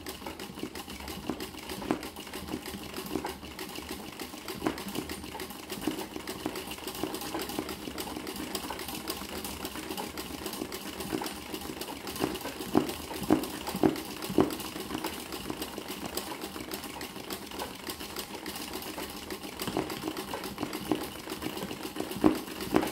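Sewing machine stitching continuously at speed for free-motion embroidery, the needle making a fast, even clatter as the hooped towel is moved by hand. A few louder clicks come about halfway through and again near the end.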